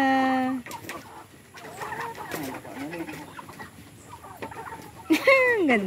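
A flock of free-range chickens clucking and calling, with a loud drawn-out call at the start and another loud call falling in pitch near the end.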